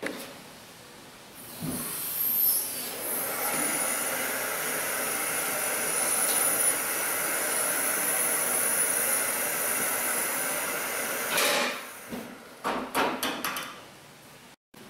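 Two-post hydraulic vehicle lift lowering a car: a steady hiss of fluid through the lowering valve with a thin high whine, running about ten seconds and cutting off suddenly, followed by a few short knocks.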